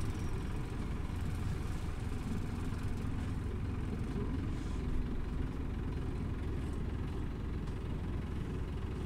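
Scania OmniLink CK270UB city bus heard from inside the passenger cabin: a steady low rumble of engine and running gear.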